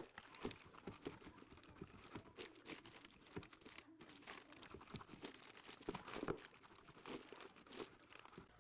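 Faint handling noises: irregular rustling with many small clicks and knocks.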